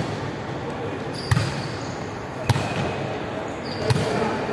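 Volleyball thuds in a large hall: three sharp hits about a second and a half apart, each ringing on briefly in the room.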